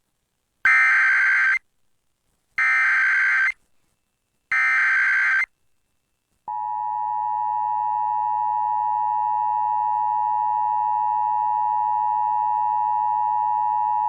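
Emergency Alert System SAME header: three one-second bursts of buzzing digital data tones, evenly spaced. About six seconds in, the steady two-tone EAS attention signal starts and holds; together these announce an incoming emergency alert, here a Local Area Emergency.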